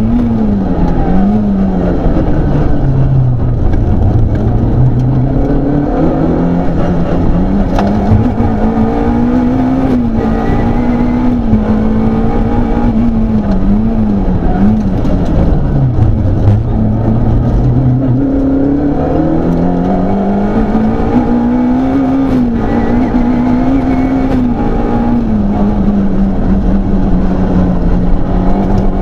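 Peugeot 106 Rallye rally car's engine heard from inside the cabin, loud throughout as it is driven hard on a special stage. The revs climb and fall repeatedly with gear changes and lifts for corners, with two deep drops, about 3 seconds in and again around 15 seconds, before pulling back up.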